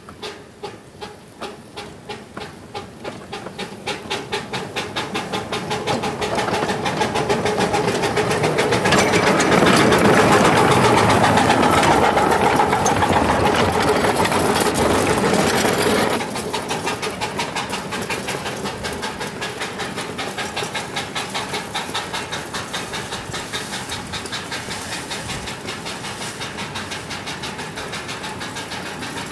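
Ridable live-steam miniature locomotive chuffing as it pulls a train away, its exhaust beats starting at about two a second and quickening as it gathers speed. The chuffing is loudest as the train passes close, then turns suddenly quieter after about sixteen seconds, running on as a quicker, steady beat.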